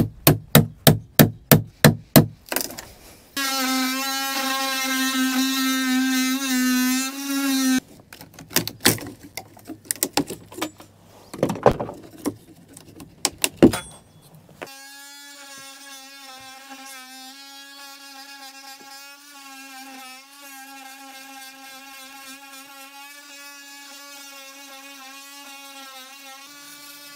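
Quick regular knocking blows, about three or four a second, then a small power tool buzzing steadily for a few seconds. More irregular knocks follow, and about halfway through a quieter steady power-tool buzz sets in and keeps going.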